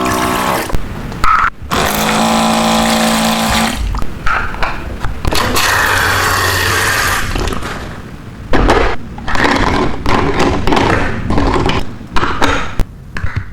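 Miniature toy kitchen set being handled: a small battery motor hums steadily twice, then comes a hiss, then a run of sharp plastic clicks and knocks.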